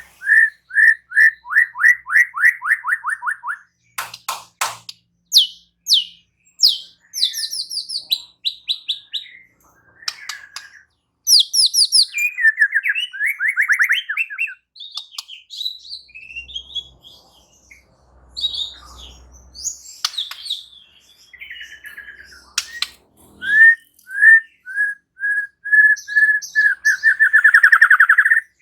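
White-rumped shama singing a long, varied song: runs of repeated whistled notes that speed up into a fast trill at the start and again near the end, with assorted whistles, chips and rattling phrases between.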